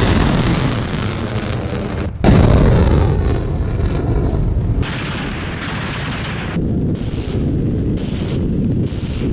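Missile launch and blast sounds. A heavy rumbling roar is followed, about two seconds in, by a sudden louder boom and a long rumble. From about seven seconds in, an attack helicopter fires rockets, and shorter blasts repeat about once a second.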